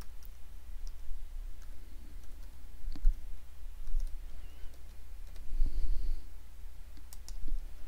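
Computer keyboard keys typed in short, scattered clicks while a phone number is entered, over a low steady hum.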